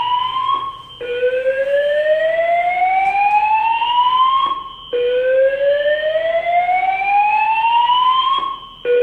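Voice-evacuation fire alarm sounding its slow-whoop tone. A single pitch rises steadily over about three and a half seconds, then cuts out briefly before the next sweep begins. Two full sweeps are heard, with a third starting near the end.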